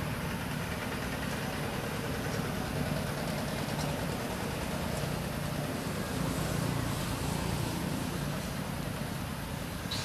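A steady low engine hum, an engine idling, under a constant background hiss.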